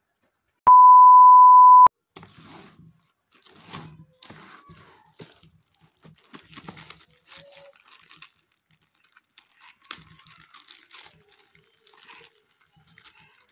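A loud, steady high beep lasting about a second, then faint crinkling and rustling of a plastic courier mailer bag being handled and pulled open.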